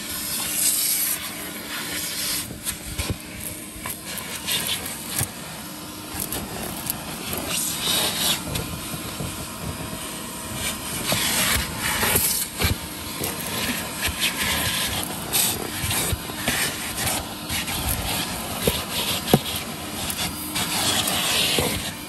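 1969 Electrolux Model 1205 vacuum cleaner running, its crevice tool rubbing and scratching irregularly over car carpet as it sucks up dirt.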